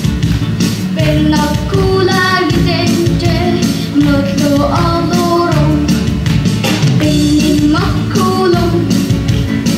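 A boy singing a song into a microphone over amplified backing music with a steady beat.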